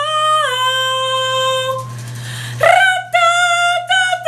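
A high voice singing long, steady held notes, unusually flat in pitch. The first note steps down about half a second in and fades out before the middle, and a louder held note starts after a short gap, breaking briefly a few times. A steady low hum runs underneath.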